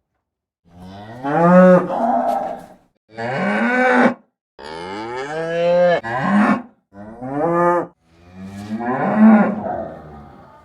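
Cattle mooing: a series of about five loud moos with short gaps between them, each rising in pitch at its start.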